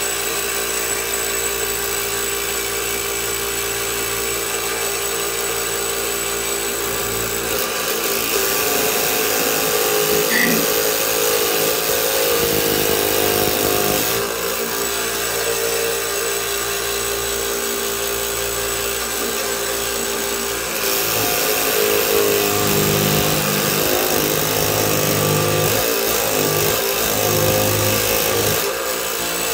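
BVI Jig Saw Jr. tabletop scroll saw running steadily, its blade cutting through a thin wooden stick held pressed down on the table. It gets louder at times as the cut goes on.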